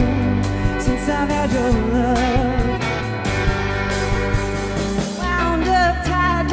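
Live band music: a woman singing while a fiddle is bowed, with electric guitar, bass guitar and a drum kit keeping a steady beat.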